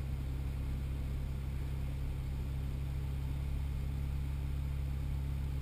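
Straight-piped (muffler-deleted) Cummins inline-six turbodiesel of a Dodge Ram 2500, heard from inside the cab while driving: a steady, low engine and exhaust sound that does not change in pitch.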